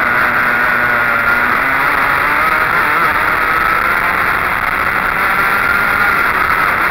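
Go-kart engine running at speed on track, heard on board the kart over steady wind and road noise. Its pitch sags a little partway through, as the kart comes out of a corner, then climbs again along the straight.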